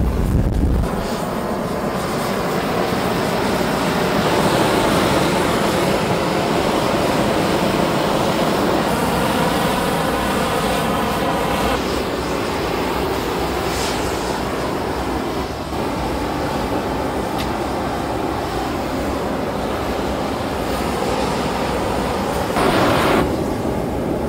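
Gas hand torches blowing a steady, loud rushing noise as their flames heat the hot glass of a sculpture.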